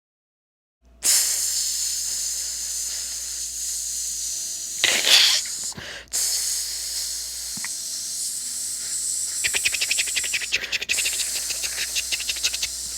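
A steady hissing sound starting about a second in, with a louder rush about four seconds in, a short break near six seconds, and a fast fluttering rattle in the hiss toward the end.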